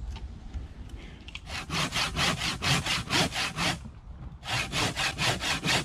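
Saw cutting through a block of makukha (pressed sunflower-seed cake) for carp bait: quick rasping strokes, about four a second, in two runs with a short pause a little after the middle.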